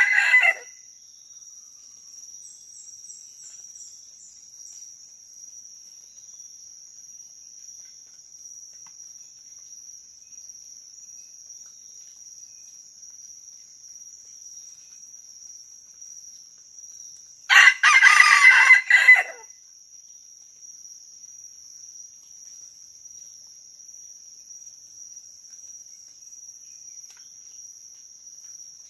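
A red junglefowl (labuyo) rooster crows: the tail of one crow at the very start, then one loud crow of about a second and a half, a little past halfway. Insects trill steadily and high-pitched throughout.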